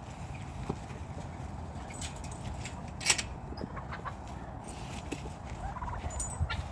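Domestic tom turkey gobbling while puffed up in display, over a steady low background rumble.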